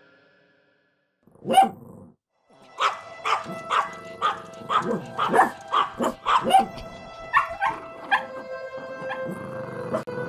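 A dog barking: one bark, then a quick run of barks about two a second, over music whose held notes come in near the end.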